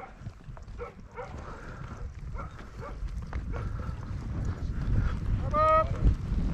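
Horses moving at a walk across dry ground, their hoofbeats a low, uneven thudding that grows louder through the second half. Near the end comes one short high call whose pitch falls.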